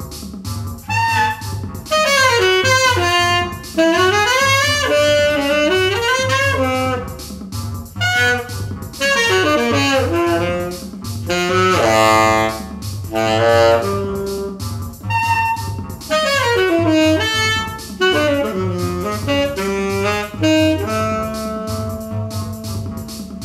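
Instrumental jazz-style jam: a saxophone-toned lead plays a winding, sliding melody over a steady bass and drum beat, settling onto a long held note near the end.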